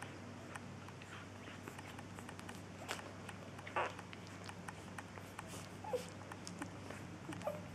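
Newborn Wäller puppies suckling at their mother's teats: a run of soft wet smacking and clicking sounds. There is a brief louder rustle about four seconds in and a couple of tiny squeaks near the end.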